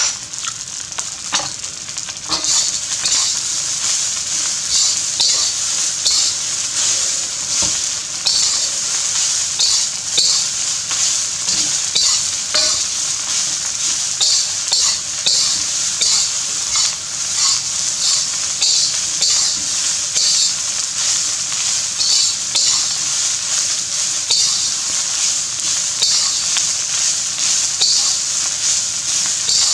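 Fried rice sizzling in a hot wok while a metal spatula stirs and tosses it, scraping against the wok about once a second.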